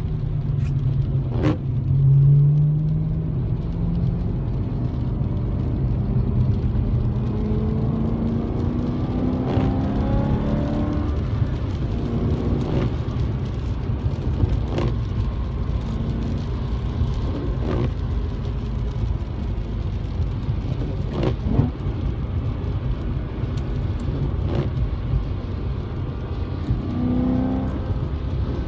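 BMW E92 M3's V8, heard from inside the cabin, pulling up through the revs with its pitch rising twice, over a deep steady rumble of road noise. Sharp clicks come every few seconds.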